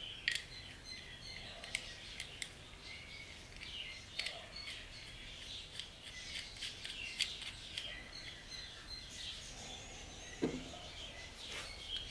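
Small scattered metal clicks and taps as the steel rod and knurled nut of a cast-aluminium file holder are handled and screwed into the handle, with one duller knock about ten seconds in. Faint birdsong chirps behind.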